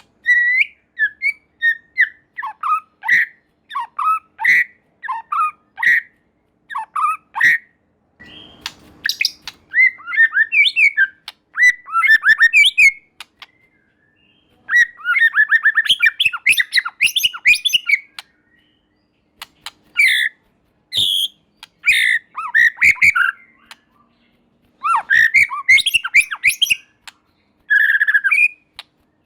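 White-rumped shama singing a loud, varied song of whistled phrases, harsh notes and fast rattling runs, delivered in bursts with short pauses between them.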